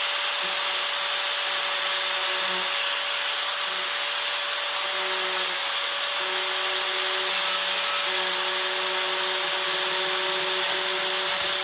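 Handheld power grinder running steadily with a constant whine, grinding off the metal staple ends that stick out of a plastic-welded car fender.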